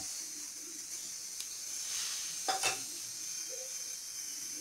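Steady hiss, with a brief light knock or rustle about two and a half seconds in.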